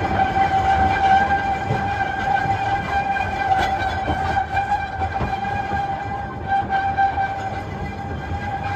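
Narrow-gauge steam train running slowly, its carriages rumbling and clicking over the track, with a steady high-pitched whine held at one pitch throughout.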